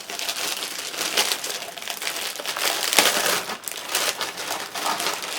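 Packaging being handled and unwrapped as the alarm dock is lifted out of its box: steady crinkling and rustling, with one sharp snap about three seconds in.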